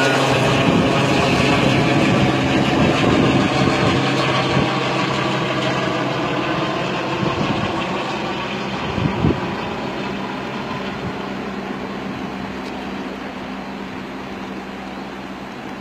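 Helicopter flying away with an underslung load, its rotor and engine drone steady in pitch and fading gradually as it recedes.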